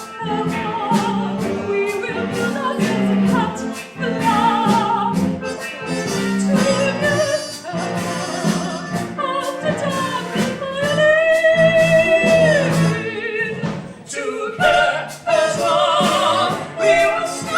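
A song from a stage musical: voices singing with vibrato over instrumental backing, with one note held for about two seconds a little past the middle.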